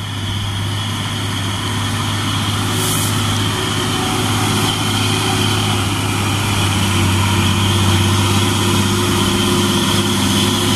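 Mitsubishi Fuso FN-series dump truck's diesel engine running steadily as the truck approaches, its drone growing gradually louder.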